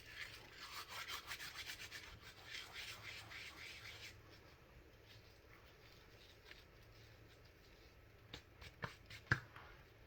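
Dried curry leaves being crushed and rubbed between the fingers: a quick, dry rustling crunch for about four seconds that then fades. Three sharp knocks near the end, the last the loudest.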